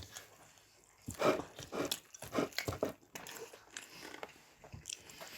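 A person biting and chewing crispy fried chicken close to the microphone: irregular crunches and wet mouth sounds, the loudest bites about a second in.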